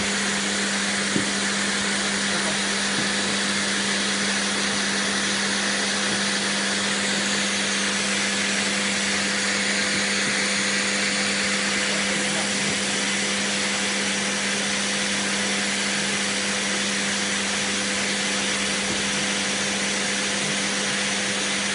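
Canister vacuum cleaner running steadily: a constant motor hum under an even hiss.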